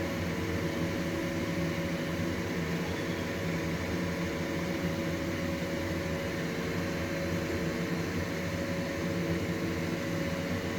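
Steady mechanical hum over a hiss.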